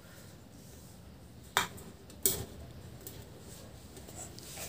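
Two sharp clicks about two-thirds of a second apart, each with a light metallic ring, from an empty aluminium drink can being handled and cut with a craft knife.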